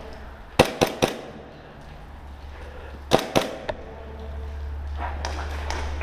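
Airsoft guns firing semi-automatic: two quick strings of three sharp cracks, about a second in and again about three seconds in, then a couple of fainter shots near the end, over a steady low rumble.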